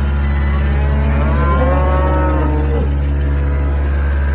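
A cow moos once, a long call of about a second and a half that drops in pitch as it ends, over the steady low hum of an idling vehicle engine.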